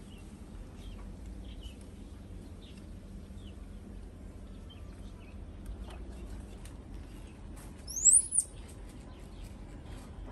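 Small birds chirping with short, faint, high notes, and one loud high whistle that rises and then falls about eight seconds in.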